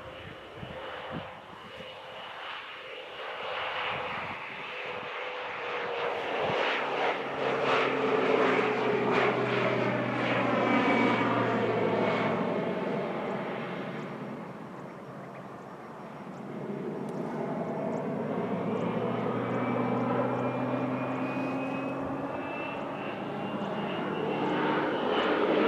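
Air Tractor AT-602 crop duster's Pratt & Whitney PT6A turboprop engine and propeller making low, fast passes. The sound swells to a peak, with its whine falling in pitch as the plane goes by, fades about two-thirds of the way through, then builds again as it comes back.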